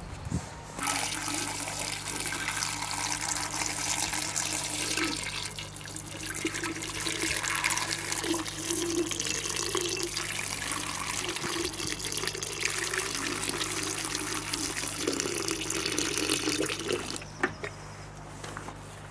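Water pouring in a steady stream into the open cylindrical cooling tank of a Petter M type tank-cooled stationary engine, splashing as the tank fills. The flow starts about a second in and stops shortly before the end.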